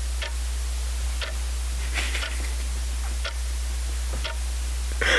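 Clock ticking about once a second over a steady low hum. A louder breathy vocal sound comes right at the end.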